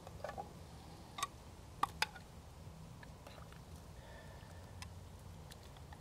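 A ladle scooping stew out of a cast iron Dutch oven, knocking against the pot in a few light clicks, the sharpest two close together about two seconds in. A faint low hum runs underneath.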